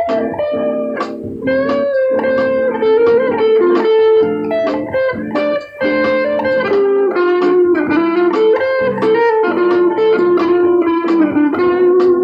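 Electric guitar improvising a melodic line of quickly picked notes that slowly moves lower in pitch, with lower notes ringing beneath.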